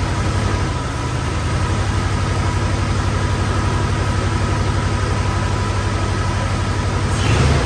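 Engine of a 1994 Chevrolet S10 pickup that sat for five years, running at a steady idle just after being started. The sound gets louder near the end.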